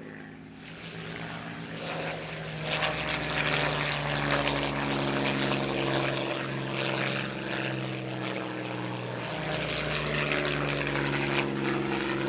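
Propeller engines of WWII piston-engined fighter aircraft flying past, a steady engine drone that swells about two seconds in. Its pitch shifts slightly as the aircraft pass, then it builds again near the end.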